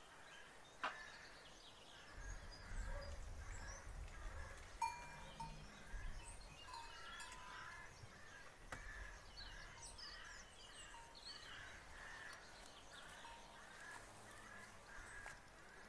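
Quiet farmyard ambience: small birds chirping and twittering throughout, with two sharp knocks, about a second and about five seconds in.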